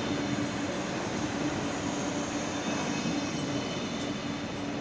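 A Stadler GTW articulated electric multiple unit rolling past close by and pulling away along the platform track: a steady rumble of wheels on rail with a low hum running through it.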